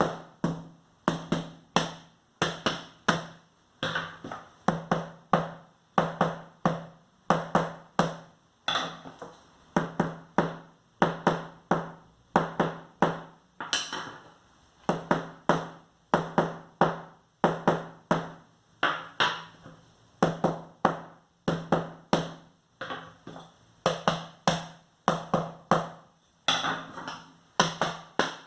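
A spoon beating an old hardback book like a bass drum in a steady rhythm of dry, thudding strikes, roughly two a second.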